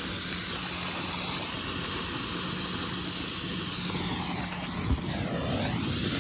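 Handheld red marine distress flare burning with a steady, rushing hiss, its tone sweeping down and back up near the end as the flare is moved about. A single knock about five seconds in.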